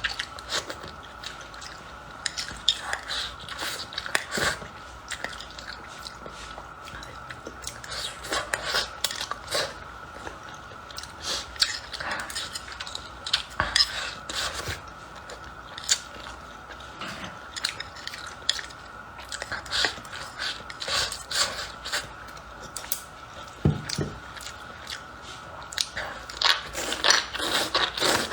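Kitchen utensils clinking and knocking against dishes and pots in irregular clatters, over a steady faint high hum.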